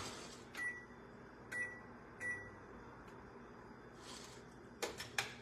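Three short beeps about a second apart from a stove's touch controls as the stove is switched on, then a few light clicks near the end.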